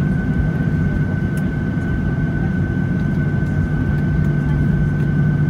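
Cabin noise of a Boeing 737-800 taxiing on the ground, its CFM56-7B engines near idle: a steady low hum with a constant high whine over it.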